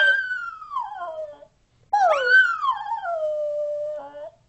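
Shetland sheepdog howling along in two long, wavering howls. The first slides down and fades out about a second and a half in. The second starts about two seconds in, rises, then falls and holds a lower note for a while.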